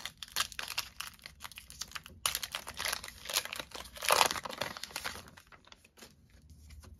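Foil Pokémon TCG booster pack wrapper crinkling and being torn open by hand, with the loudest rip about four seconds in.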